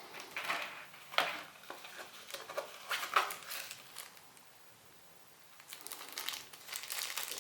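Packaging being handled, with crinkling and rustling in irregular bursts, then a pause of about two seconds and denser crinkling near the end.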